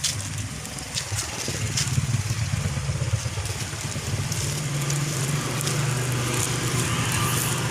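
A motor vehicle's engine running steadily at a low hum, growing a little stronger about two seconds in.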